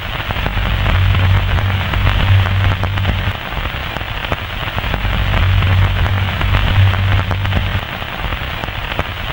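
A dense crackling hiss full of small clicks, over a low hum that swells and fades every few seconds.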